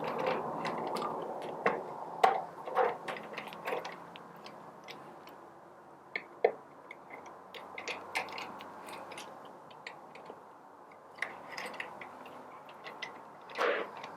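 Small metal screws being driven home with a hand tool into a coffee grinder's gearbox housing: irregular light clicks and ticks of the tool and screws, with a louder knock near the end. A faint steady hum runs under the clicks for the first few seconds.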